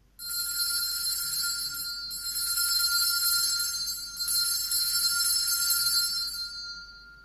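Altar bells rung at the elevation of the host after the words of consecration, struck three times about two seconds apart, each ring running on in a bright, high ringing that fades away near the end.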